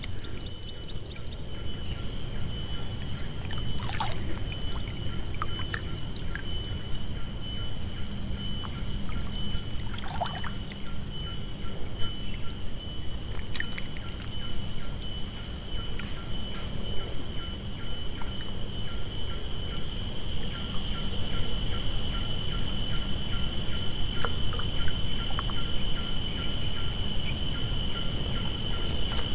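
Lakeside ambience: an uneven low rush of wind and water lapping at the bank, with a steady high-pitched whine over it.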